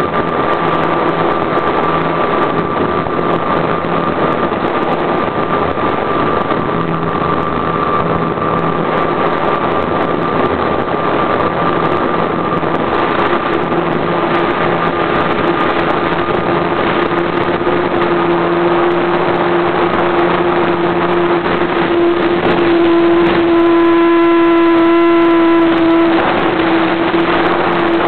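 RC model airplane engine heard up close from the plane itself, running steadily. About 23 seconds in it gets louder and higher for a few seconds, then eases back.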